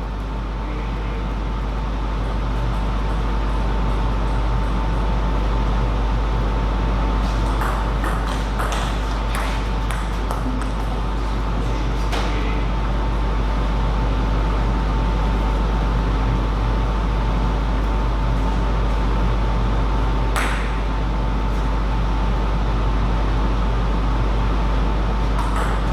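Table tennis ball clicking off bats and table in a rally of about a dozen quick hits, over a steady low hum. One more hit comes later, and a few near the end.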